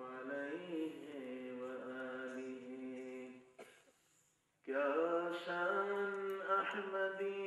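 A man's voice intoning long, held melodic notes with small turns in pitch, in two phrases separated by a short breath near the middle.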